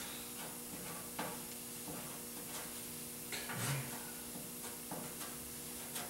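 Plastic spreader scraping short-strand fiberglass filler into welded seams on sheet steel: a few soft strokes over a steady background hum.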